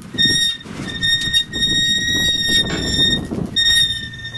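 Sail halyard rigging squealing as the sail is hoisted up the mast. The squeal is a steady high tone that comes in stretches lasting from a fraction of a second to over a second, over a low rubbing rustle of line and canvas.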